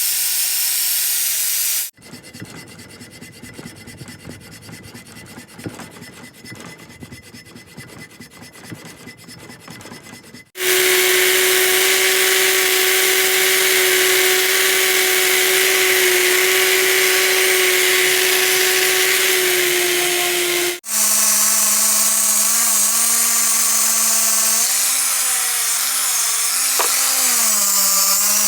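Electric power tool work on a cast-iron vise, in separate cut clips. First comes a quieter stretch of scratchy hand scraping or brushing. About ten seconds in, a motor starts running at a steady high speed. About twenty seconds in, a lower-pitched motor takes over, dipping in pitch several times as it bears down on the metal.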